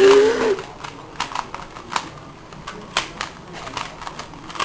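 3x3x3 Rubik's cube being turned fast in the hands, its plastic layers snapping round with irregular quick clicks. A brief voice sounds in the first half second.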